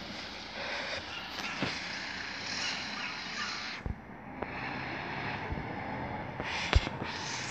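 Bin lorry's diesel engine running as the truck drives slowly off, with a few short knocks and a sharper one near the end.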